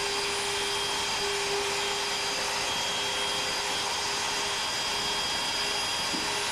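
Router motor on a CNC Shark machine running steadily, with a constant hum and one held tone. The bit spins clear of the wood on a first pass that cuts nothing.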